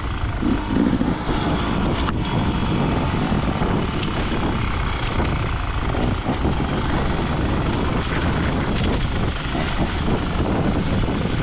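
Enduro dirt bike engine running as the bike is ridden, a loud, steady, rough noise with a sharp click about two seconds in.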